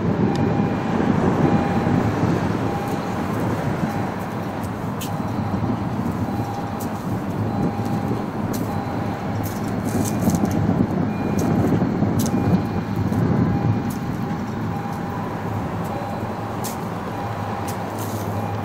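MBTA diesel commuter train locomotive running close by, a steady low rumble, with a bell dinging in even repeats about once a second underneath.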